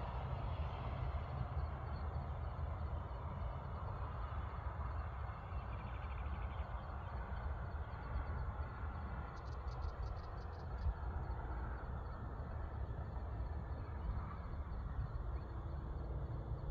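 Outdoor hillside ambience: a steady low rumble with a faint, steady high-pitched insect drone, and a quick run of about seven high clicks about ten seconds in.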